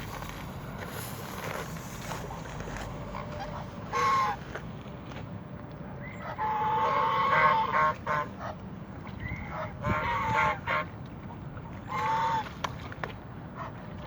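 Waterfowl calling: a short call about 4 s in, a longer drawn-out call from about 6 to 8 s, then two more calls near 10 and 12 s.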